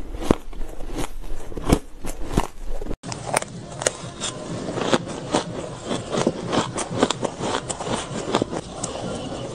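Shaved ice being chewed close to the microphone, a dense run of short sharp crunches and crackles, with a spoon scraping into the ice. There is a brief break about three seconds in, where the sound changes to a second recording of the same thing.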